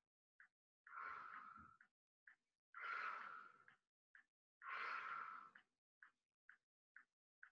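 A woman breathing out audibly three times, about a second each and roughly two seconds apart, with the effort of repeated side-lying leg lifts. Faint short ticks sound about twice a second underneath.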